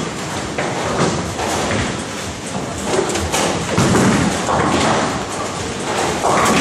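Bowling alley sounds: bowling balls thudding onto the lanes and rolling, with pins clattering, under a busy hall din of knocks.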